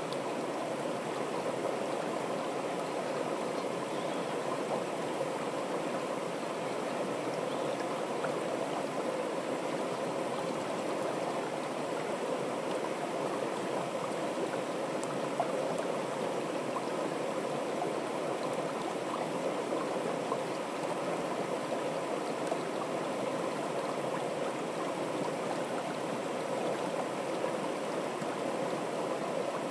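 Fast, shallow stream rushing steadily down a narrow wooden-walled channel, an even, unbroken sound of running water.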